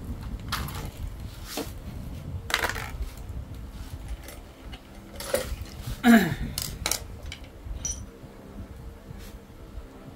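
Air-rifle parts (metal receivers and grips) being handled and set down on a tiled floor: scattered clinks and knocks. The loudest comes about six seconds in and slides down in pitch.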